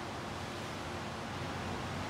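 A steady, even hiss.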